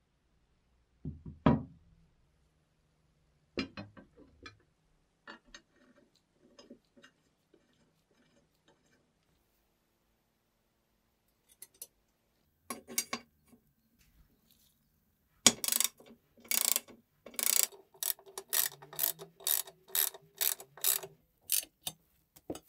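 Restored Raadvad bread slicer's mechanism being worked by hand. A few separate knocks and clicks come first, then, in the last seven seconds, a fast run of sharp rasping, clicking strokes, about two or three a second.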